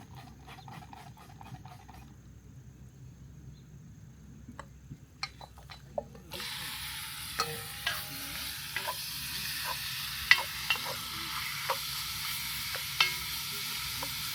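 Diced chicken and chorizo sizzling in a hot pot on a camp stove. The sizzle starts suddenly about six seconds in and then holds steady, with sharp clicks and scrapes from stirring.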